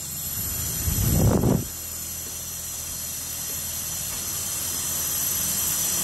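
Steady hissing rush of liquid oxygen and cold gas spraying out of a tube into a foam cup, boiling off as it lands, with a low rumble beneath. There is a louder gush about a second in, and the hiss slowly grows louder.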